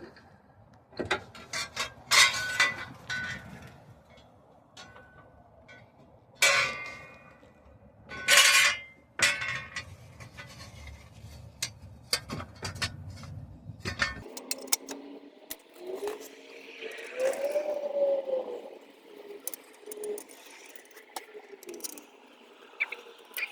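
Metal tools and steel hub parts clinking and scraping during a wheel hub assembly replacement. There are several sharp ringing metallic strikes in the first ten seconds and lighter scattered clicks after that.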